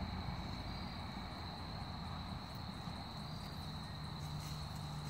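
Steady high-pitched insect chorus, a continuous chirring, over a low outdoor rumble.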